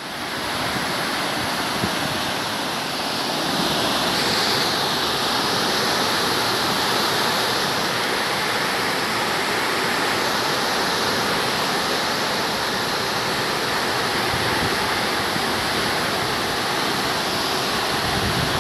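Muddy floodwater rushing in a steady torrent through a canal's breached concrete sluice, the canal washed out by heavy rain. The rushing grows a little louder about three seconds in.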